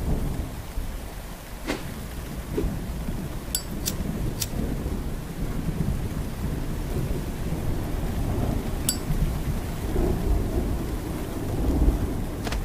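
Rainstorm: steady rain with low rumbling thunder that swells near the end, and a few scattered sharp ticks.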